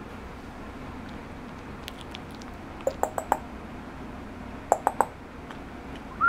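Two short runs of quick clicks, about four in each, over a faint steady room hum; right at the end a young puppy starts a high, wavering whine.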